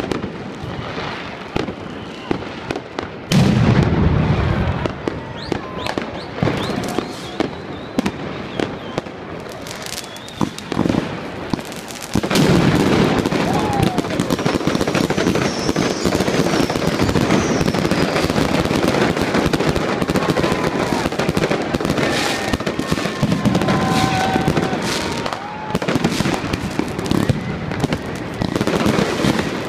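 New Year's Eve fireworks and firecrackers going off without a break: sharp bangs and crackling, with a loud boom about three seconds in, and dense continuous crackle from about twelve seconds on.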